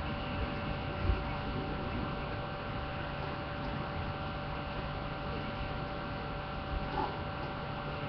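Steady electrical hum with a few fixed tones over a background hiss. A short low thump about a second in, and two fainter ones near the end.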